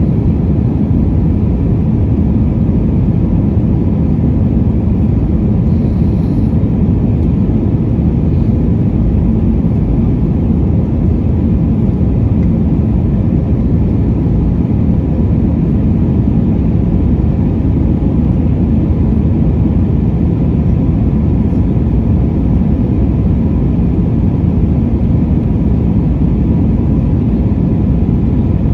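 Steady cabin noise of an Airbus A320 with IAE V2500 engines, heard from a seat by the wing: a low, even roar of engines and airflow with faint steady tones.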